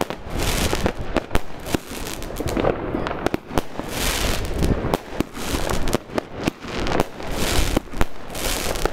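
Consumer fireworks cake firing shot after shot: sharp bangs in quick succession, with hissing, crackling bursts as the glittering stars open.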